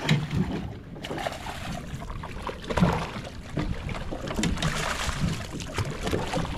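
Water sloshing and trickling around a small fishing boat, with scattered knocks and clicks.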